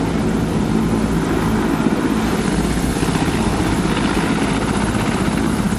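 Helicopter in flight, its rotor giving a rapid steady chop over a rushing engine noise.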